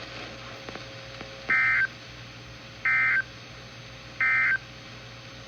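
NOAA Weather Radio SAME end-of-message code: three short, identical digital data bursts about a second and a half apart, signalling the end of the warning message. Faint radio hiss lies between the bursts.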